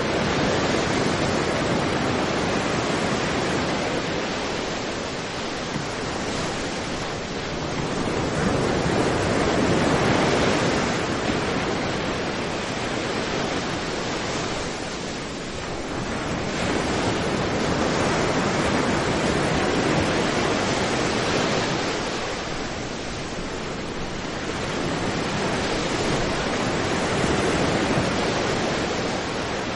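Sea surf breaking on a sandy beach: a continuous wash of waves and foam, swelling and easing every eight to ten seconds as each wave comes in.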